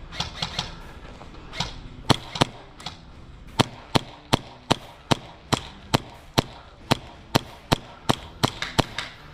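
Hi-Capa gas blowback airsoft pistol fired in quick single shots, about twenty sharp cracks at an uneven two to three a second.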